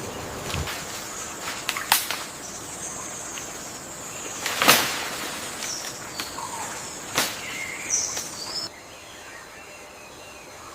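Forest ambience: short bird chirps over a steady high-pitched buzz, broken by three sharp cracks a couple of seconds apart. Near the end the buzz stops and the background turns quieter.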